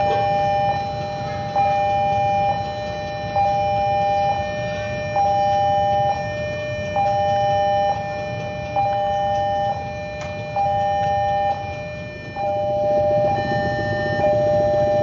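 Railway level-crossing warning alarm sounding a repeating electronic two-tone signal, about one cycle a second, with its rhythm changing about twelve seconds in. A low rumble runs underneath.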